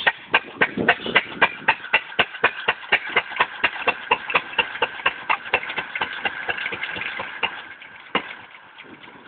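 6 HP Fairbanks Morse hit-and-miss engine running the buzz saw rig: a quick, even clatter of about six beats a second, which weakens for the last second or so.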